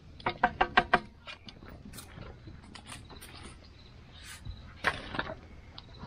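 Metal boil basket knocked about six times in quick succession against an aluminium foil pan in the first second, each knock ringing metallically as the food is shaken out. Handling noise follows, then a couple of knocks about five seconds in as the filled foil pan is set down on a wooden picnic table.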